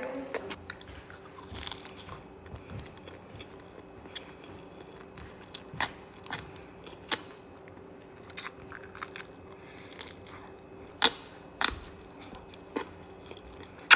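Close-up chewing and biting into twako, Cambodian sausage, with rice: wet mouth sounds punctuated by sharp clicky crunches and smacks at irregular moments.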